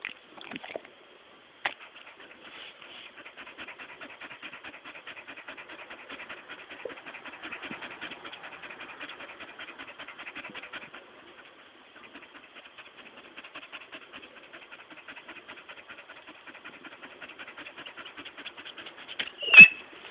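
A Staffordshire bull terrier panting in quick, even breaths that break off briefly about halfway through, with a sharp click near the start and a loud, short sound near the end.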